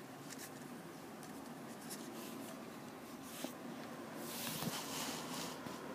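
Faint scratchy rustling of a paper certificate card being handled, with a few small ticks and a brief stronger rustle about four seconds in.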